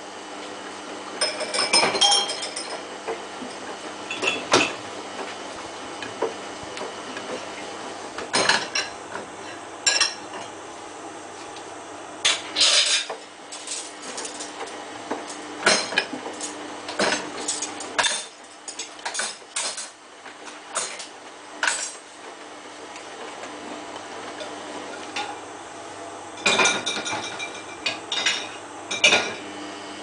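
Samsung WF8804RPA front-loading washing machine in its main wash, the drum turning a lightweight jacket through the water. A steady hum runs under irregular sharp metallic clinks and clanks as the load tumbles against the drum.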